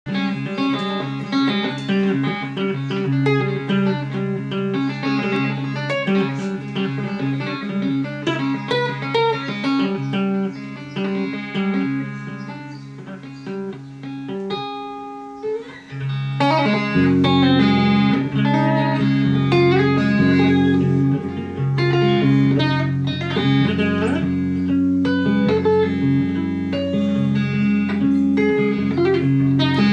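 Solo electric guitar improvisation: picked single notes and chords ringing over low notes. The playing thins out and drops in level around the middle, then comes back louder with held low bass notes and fuller chords.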